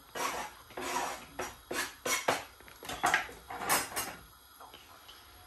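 Kitchen utensils clinking and scraping against a dish in a quick, irregular run for about four seconds, then it goes quiet. This is the handling of fish pieces being coated in gram flour.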